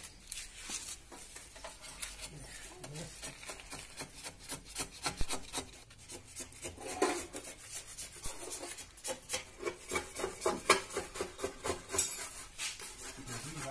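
Hand sanding or scuffing of the Vespa scooter's plastic body panels to prepare them for paint: a run of quick, rough rubbing strokes that gets louder and busier in the second half.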